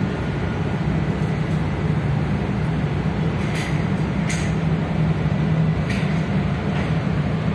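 Steady low drone of a ship's engine room with the MAN B&W ME-C two-stroke main engine running at about 86 rpm, heard from inside the engine control room. Three short hisses come through near the middle.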